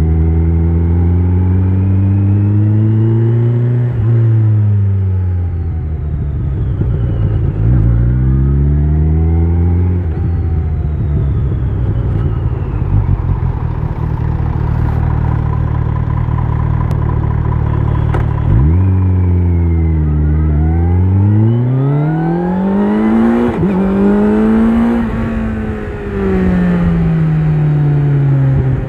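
Kawasaki Z900 inline-four with an Akrapovic exhaust under way: the engine note climbs and drops sharply at gear changes. About two-thirds of the way through it falls as the bike slows, then revs back up and settles at a steady pitch.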